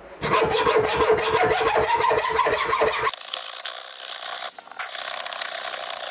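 Hacksaw cutting a hardened steel chain link held in a vise, rapid back-and-forth scraping strokes. About three seconds in, the sound changes abruptly to a thinner, high-pitched rasp with brief breaks. The blade is losing its teeth on the hardened chain.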